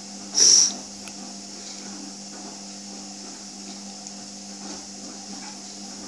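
A young house sparrow gives one loud, short, high-pitched chirp about half a second in, over a steady low hum and hiss.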